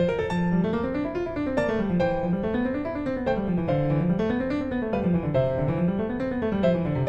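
Background piano music: quick notes rolling up and down over a walking bass line.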